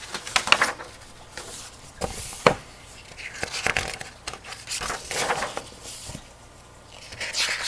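Pages of a large paperback picture book being turned and handled: paper rustling and flapping in several bursts, with sharp clicks of the pages and cover.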